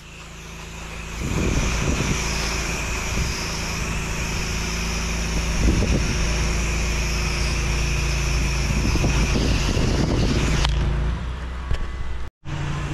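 8 gpm pressure washer spraying: a steady hiss of water from the wand as the house siding is rinsed, over the constant drone of its engine. The spray stops about ten and a half seconds in when the trigger is released, and the engine keeps running.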